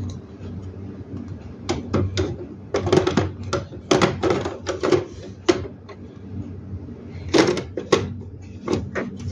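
Plastic toner cartridge being slid into a laser printer's cartridge bay and pressed home: a run of hard plastic clacks, knocks and scrapes in several clusters, over a steady low hum.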